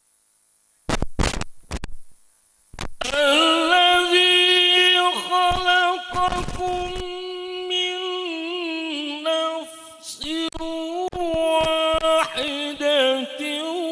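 A man's voice chanting Quran recitation in the melodic tilawah style through a microphone and PA, holding long, ornamented notes that waver up and down. A few sharp knocks come about a second in, before the chanting resumes about three seconds in.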